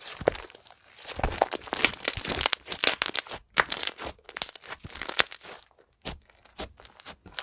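Slime being squeezed and worked by hand, giving clusters of crackling, crunching pops with short pauses between them.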